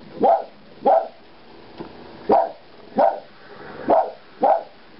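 Dog giving six sharp single barks at uneven intervals, alarm-barking at fireworks going off in the distance.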